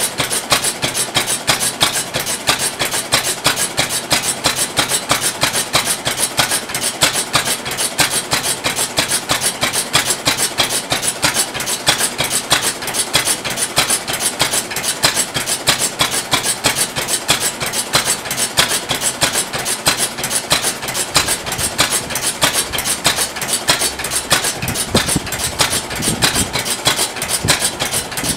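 Petter Handyman 2¼ hp paraffin oil engine, believed built in 1910, running steadily: its single horizontal cylinder firing with an even, rapid mechanical clatter.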